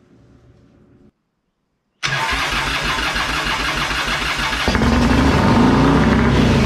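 Harley-Davidson Evolution V-twin engine on a freshly rebuilt chopper at its first start: the starter cranks it over from about two seconds in. The engine catches just after the middle and runs with revs rising and falling.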